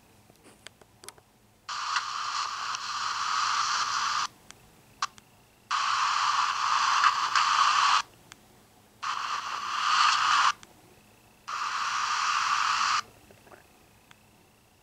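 Bursts of radio-like static hiss that switch on and off abruptly, four times, each lasting one to two and a half seconds, with short quiet gaps between them that hold a few faint clicks.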